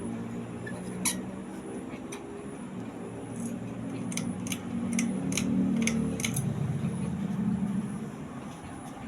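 Atlantic Air/Alaska ceiling fan running with a steady motor hum, which grows louder in the middle. There is a single sharp click about a second in and a quick run of about seven clicks in the middle.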